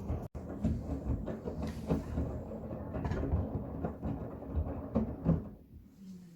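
Miele front-loading washing machine's drum turning with wet bath towels inside, a low rumble with uneven thuds as the load tumbles. The rumble stops near the end, when the drum pauses in the wash rhythm.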